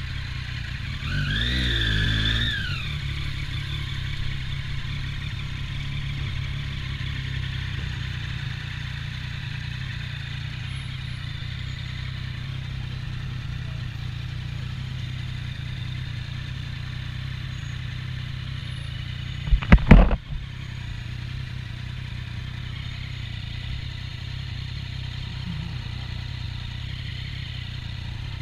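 Triumph Daytona 675's three-cylinder engine with an Arrow exhaust running steadily at low revs, with one brief rev that rises and falls about a second in. About two-thirds of the way through, a loud double knock.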